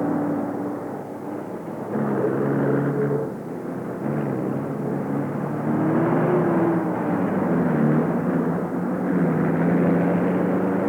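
Steady drone of aircraft engines, its pitch shifting at a few points, with a slow rise and fall about six seconds in.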